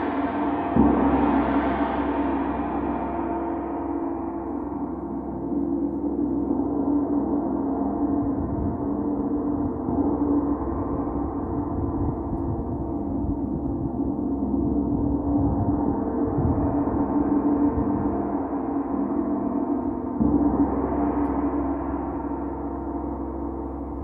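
Large hanging gong played with a soft mallet: a continuous ringing wash of many overlapping tones that swells again with fresh strokes about a second in and about four seconds before the end.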